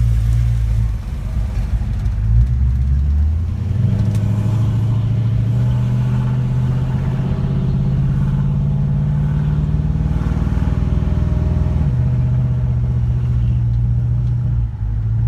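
Dodge Magnum's 400 cubic inch V8 with a Holley four-barrel carburetor accelerating from a stop, heard from inside the cabin. The engine note changes about four seconds in and drops again about twelve seconds in as the automatic shifts up. It pulls without backfiring through the carburetor this time.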